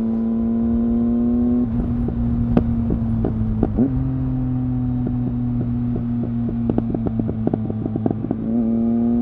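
Triumph Speed Triple R three-cylinder engine through an Arrow exhaust with its baffles removed, heard from the rider's seat over wind rush. The note climbs in pitch for under two seconds, then the throttle closes and it settles to a steadier, lower note, with the exhaust crackling and popping on the overrun. It picks up again near the end.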